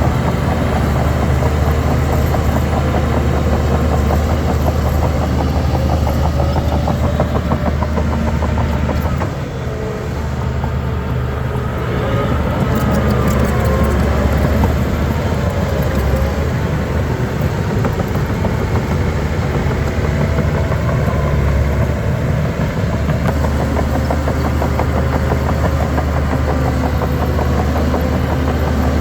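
Heavy diesel engine of a Shantui DH17 C3 bulldozer running steadily under load. It eases off briefly about nine seconds in, then picks back up with a rising pitch.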